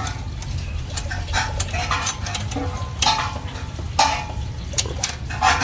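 Metal hand tools clinking and tapping on metal, a few sharp clicks over a low steady hum, as the scooter engine's valve clearance is set with a feeler gauge.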